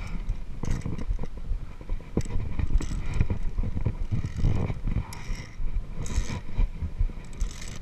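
Via ferrata carabiners clicking and clinking at irregular moments, with gloved hands gripping and sliding along the steel safety cable. A heavy, uneven rumble of wind and handling noise on the body-worn camera's microphone runs underneath.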